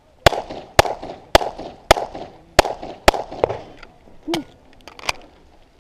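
Semi-automatic pistol fired in a quick string, sharp cracks about half a second apart, each with a short echo, and a few fainter cracks in between.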